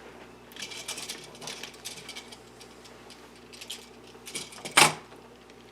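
Light, irregular clicking and ticking handling noise, as of a small model being moved about, with one louder brief noise about five seconds in.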